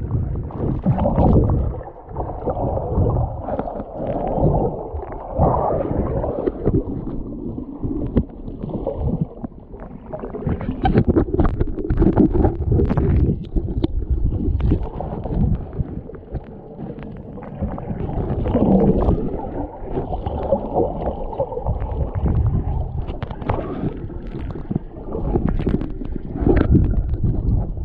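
Muffled rushing and gurgling of water heard through an underwater action camera's housing, with frequent knocks and bumps as the camera moves through the water.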